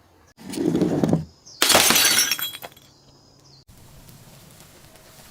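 A dull, low-pitched burst, then, about a second and a half in, a glass bottle smashing with a loud crash and tinkling shards that die away within about a second.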